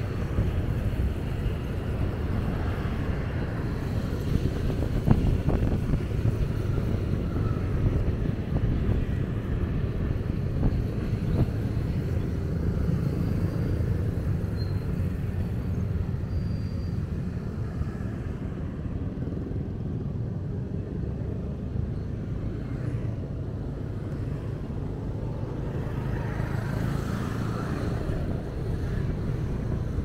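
Steady low rumble of riding a vehicle through city traffic: engine, road and wind noise, with other vehicles passing. There is a short knock about five seconds in.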